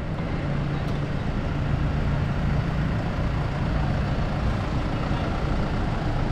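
Diesel engine of a Hyundai 45D-9 forklift running with a steady low hum.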